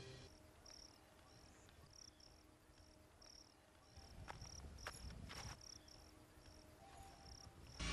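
Near silence outdoors, with faint high-pitched insect chirps repeating every half second or so. A few soft knocks and rustles come about halfway through.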